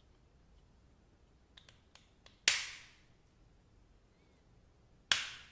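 A few faint light clicks, then two sharp snaps about two and a half seconds apart, from the small plastic pen phone being handled.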